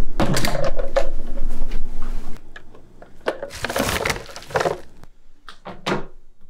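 A loud rumbling noise that stops abruptly, followed by rustling and a few sharp clicks of a lidded trash can being handled.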